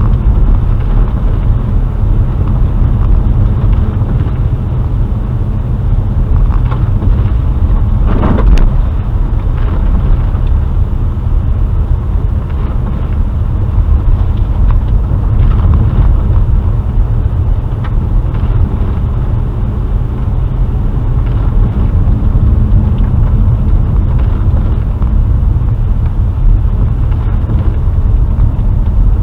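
Car driving, heard from inside the cabin: a steady low rumble of engine and road noise, with one brief knock about eight and a half seconds in.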